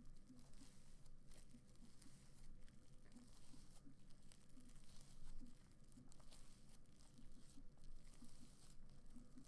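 Slime being played with by hand: faint, irregular crackling and tearing sounds as it is stretched and squeezed.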